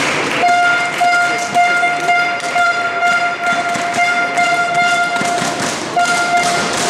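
A horn blown on one steady note for about five seconds, which breaks off briefly near the end and then sounds again.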